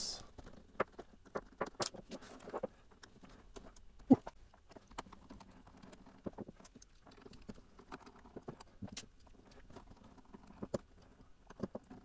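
Screwdriver turning machine screws out of a power adapter's aluminium chassis: faint, scattered small clicks and ticks, the sharpest about four seconds in.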